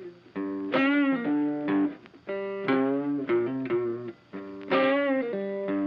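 Background music: a guitar playing a melody of held notes, some bent and wavering, in short phrases with brief pauses between them.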